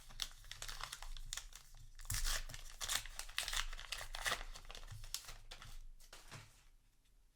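Foil trading-card booster pack wrapper being torn open and crinkled by hand, a run of scratchy rustles that is busiest in the middle and dies away over the last couple of seconds.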